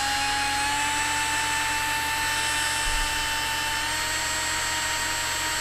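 Milwaukee cordless drill with a 9/64-inch bit running steadily, drilling a pilot hole through an aluminium roof-rack plate. Its motor whine holds one pitch, rising slightly at the start and again about four seconds in.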